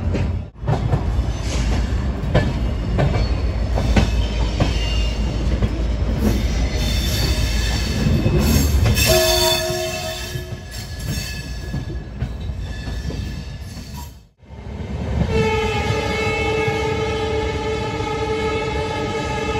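Express train running at speed, heard from on board: a dense rumble and rattle from the coach. The sound cuts out for a moment about fourteen seconds in, and then a train horn sounds one long, steady blast.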